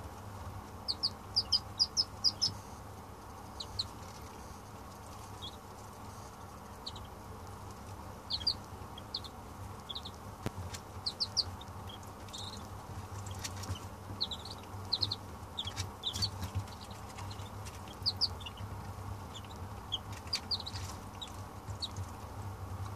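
Two-day-old Bernier's teal (Madagascar teal) ducklings peeping: short high chirps, scattered and now and then in quick runs of several, over a steady low hum.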